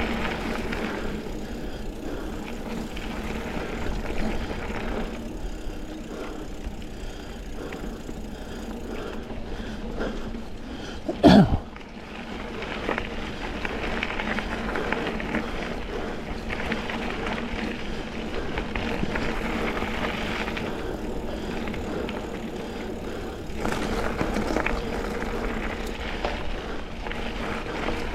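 Mountain bike rolling along a dirt double-track trail: steady tyre and wind noise with the bike's rattle. About 11 seconds in there is a single loud, sharp knock.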